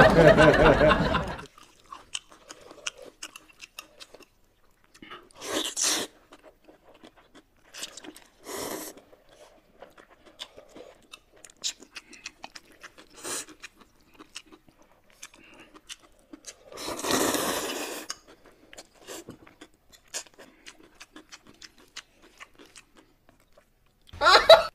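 Close-up eating sounds of people eating noodles: steady chewing with many small wet mouth clicks, broken by a few short slurps, the longest about two-thirds of the way through.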